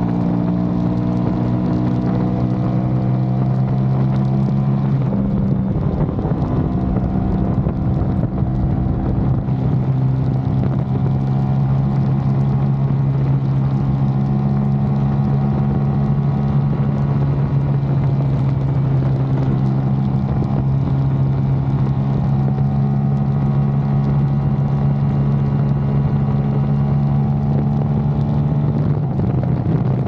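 Aprilia RS660's parallel-twin engine through a Mivv Delta Race exhaust, running at motorway speed with wind rushing past. The engine note rises gently over the first few seconds, wavers briefly about five seconds in, then holds steady.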